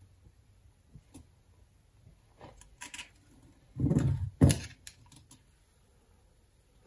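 Hand soldering of spade connectors onto an antenna loading coil's wire: small clicks and taps of the soldering iron, connectors and wire, with two louder bumps about four seconds in.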